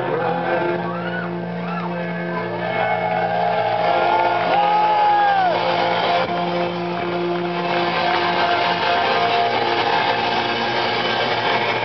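Live rock band playing loud, with sustained electric guitar chords over the drums.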